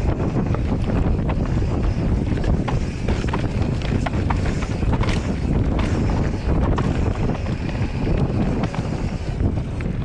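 Wind buffeting the microphone: a steady low rumble with scattered small ticks.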